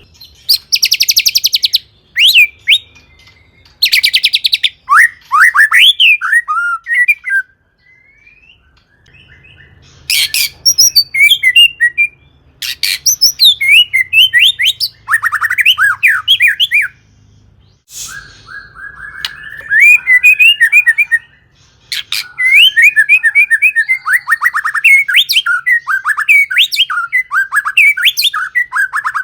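White-rumped shama singing a long, varied song of whistled phrases and fast trills. Twice near the start come harsh, rapid rattles, and the song stops briefly twice.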